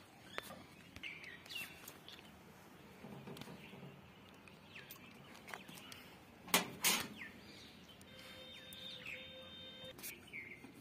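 Scattered bird chirps, short downward-sliding calls, over quiet background. About six and a half seconds in come two sharp knocks close together, the loudest sounds, and a short steady tone follows at around eight seconds.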